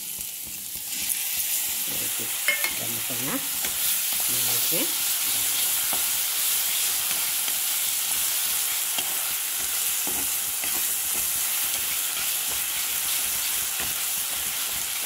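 Onion-tomato masala paste and spice powders frying in hot oil in a kadhai, sizzling steadily while a spatula stirs them. The sizzle grows louder about a second in, as the masala goes into the oil with the browned onions.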